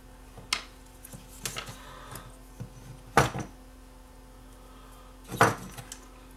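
Knocks and clicks of handling on a workbench as small electrolytic capacitors and a power-supply circuit board are set down and picked up: four or so separate knocks, the loudest about three seconds in and another near five and a half seconds.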